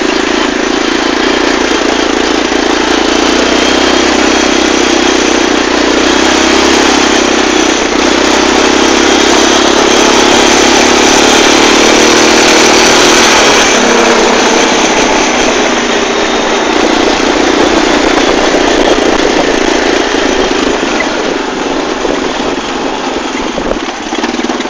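Linhai ATV engine running steadily under way, heard from on the quad, with a loud rushing noise over it. The engine note drops about two-thirds of the way through, and the sound eases off near the end.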